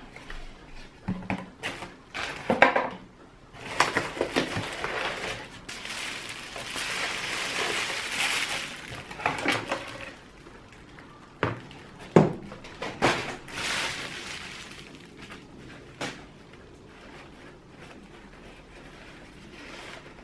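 Unboxing handling noise: bubble wrap and plastic packaging rustling and crinkling, with a few sharp knocks of items being set down on the table and the cardboard box being moved, about halfway through.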